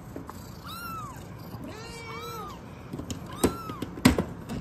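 Very young kitten mewing three times, thin high arching cries. A few sharp clicks come near the end.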